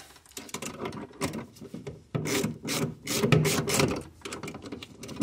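Irregular scraping and rubbing of a gloved hand and tool against the throttle pedal bracket in a Suzuki Samurai footwell, as the pedal stop is adjusted. The strokes come short and quick, one after another.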